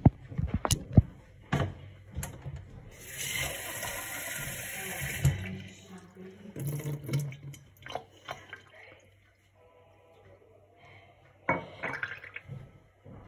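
Kitchen mixer tap running for about two seconds, filling a ceramic mug at the sink. Scattered knocks and clinks of the mug being handled come before it and near the end.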